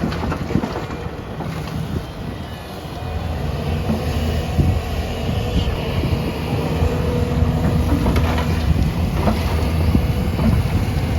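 Heavy diesel machinery, a backhoe loader and tractors, running steadily, with scattered knocks and clatter.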